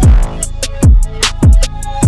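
Background music with a heavy electronic beat: deep bass drum hits that drop in pitch about every half second, with crisp hi-hat ticks between them.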